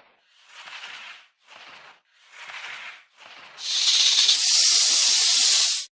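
A cobra hissing: four short hisses, then a long, loud hiss starting about three and a half seconds in that cuts off suddenly.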